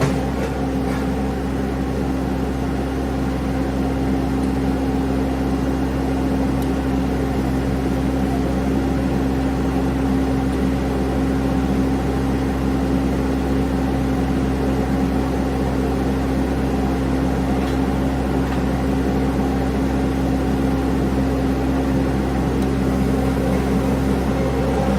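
Mini skid steer's engine running steadily at a constant speed, a continuous hum with no change in pitch.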